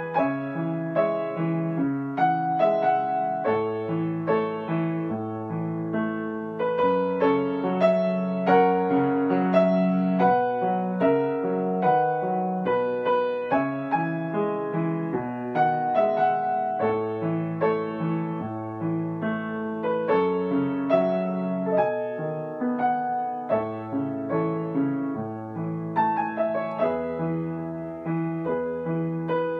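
Solo piano played on a Yamaha grand piano: a melody with a flowing chordal accompaniment, fresh notes struck several times a second over held chords and a bass note that changes every couple of seconds.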